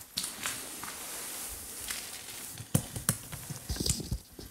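Footsteps and scuffing on a debris-littered floor: a rustling hiss for the first couple of seconds, then a few sharp knocks and scrapes, bunched together near the end.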